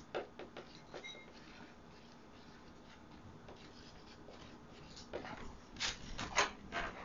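Marker writing on paper: a few short scratchy strokes with a brief squeak at the start, then quiet. A cluster of louder scratchy strokes and rustles comes near the end.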